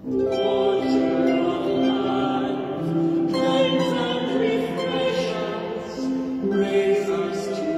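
A singer singing a slow melody with long held notes, accompanied by a harp.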